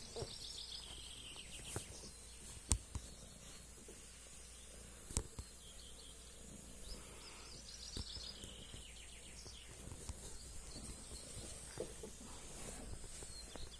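Songbird singing twice, each song a quick run of notes falling in pitch, over steady outdoor background noise; a couple of sharp clicks in between.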